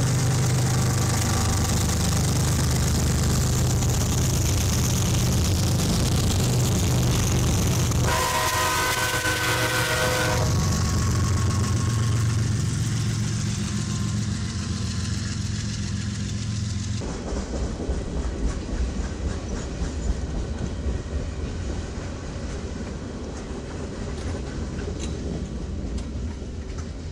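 Freight train passing: a steady low diesel rumble, broken about eight seconds in by a train horn held for about two seconds. From about seventeen seconds on, the rumble gives way to the rapid clicking and clatter of flatcar wheels over rail joints.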